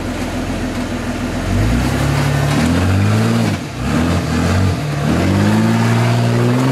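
Lifted Jeep Cherokee XJ's engine idling, then revved in three surges as it crawls up a rock ledge, the pitch rising with each surge and the last held longest before easing off at the end.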